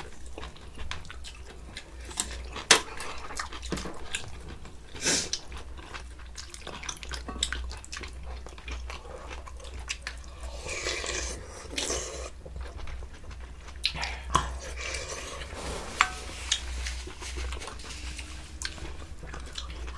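Eating sounds at a meal table: spoons and chopsticks clicking and knocking against bowls, with chewing, over a steady low hum.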